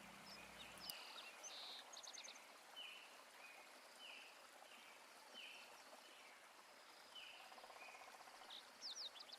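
Faint birdsong over a low background hiss: short chirps repeated about once a second, with a few quick higher trills near the end.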